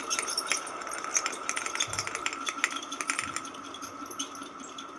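Ceiling fan running with a steady high squeal over irregular rattling clicks, the clicks thinning out after about three and a half seconds. The repairer puts the noise down to a bad bearing.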